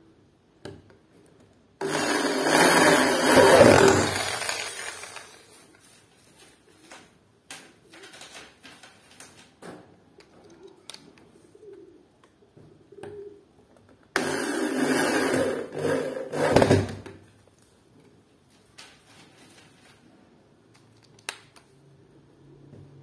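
A power drill driving screws into a thin aluminium door frame, running in two bursts of about three seconds, the first a couple of seconds in and the second about two-thirds of the way through. Light clicks and knocks of handling come between the bursts.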